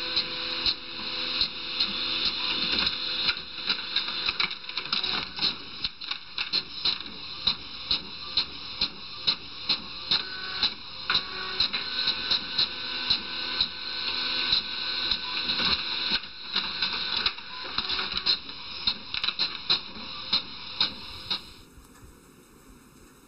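Desktop printer running a print job: a steady mechanical whir with quick clicking from the paper feed and print head, a few clicks a second. It stops shortly before the end.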